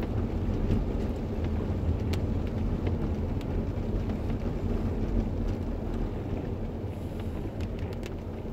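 Car cabin noise while driving on a wet road: a steady low rumble of the engine and tyres, with a few faint ticks.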